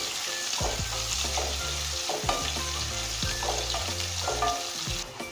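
Chopped onion sizzling in hot oil in a non-stick pan, stirred with a wooden spatula that scrapes across the pan every second or so. The sizzle drops off sharply near the end.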